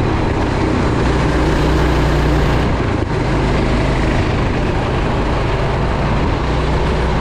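Go-kart engine running hard, close up from the driver's seat as the kart laps the track. The note stays steady, with a brief drop about three seconds in and small changes in pitch as the kart takes the bends.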